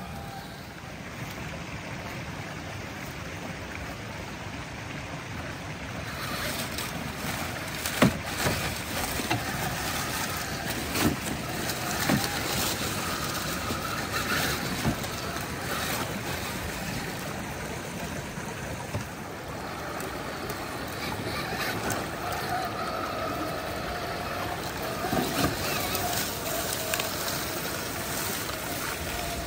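Electric drivetrain of an Axial SCX6 Honcho 1/6-scale RC crawler whining as it crawls over rocks and dry leaves, with a few sharp knocks of tyres and chassis on rock. A creek rushes steadily underneath.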